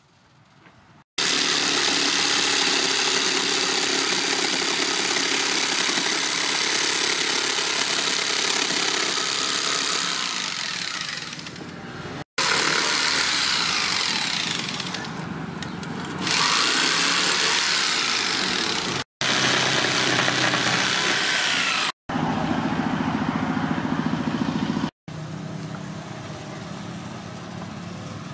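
A run of power-tool noise in short clips that each cut off abruptly. In one of them an electric jigsaw saws through a wooden board, its motor pitch rising and falling. The last clip is a quieter steady hum.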